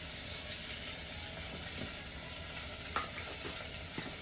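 Sofrito of onion, garlic, peppers and tomato paste sizzling steadily in hot oil in a cooking pot, with a light click about three seconds in.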